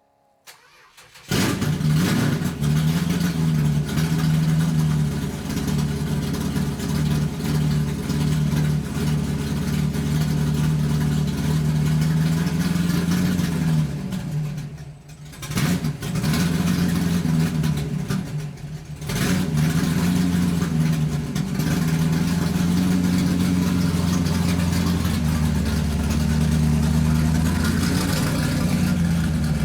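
A motor starts up about a second in and runs loudly and steadily, dipping briefly twice midway before carrying on.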